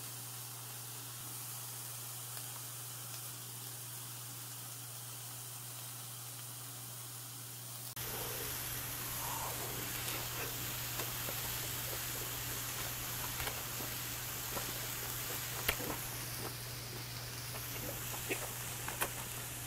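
A steady hiss with a low hum. About eight seconds in it gets louder and close-up chewing begins: many small, irregular mouth clicks as a mouthful of grilled pen-shell scallop, beef and shiitake wrapped in a perilla leaf is eaten.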